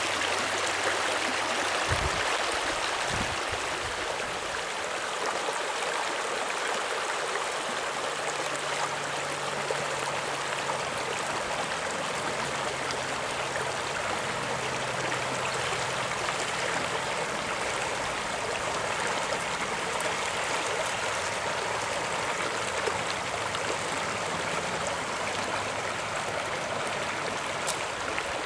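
Shallow rocky creek running steadily over stones, with a couple of low thumps about two and three seconds in.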